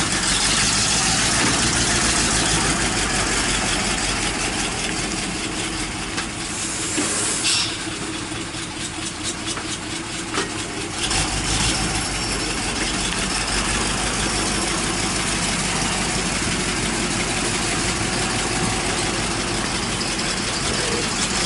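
Tractor diesel engine running steadily, with a constant hiss over it; the deep engine note drops away for a few seconds in the middle and comes back.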